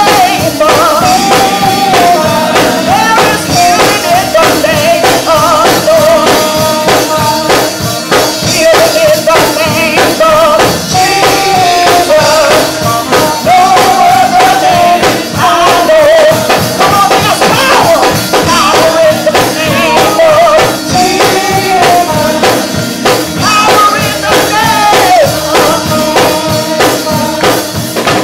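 Live old-school gospel praise singing: a woman sings lead into a microphone over instrumental accompaniment with a fast, steady beat.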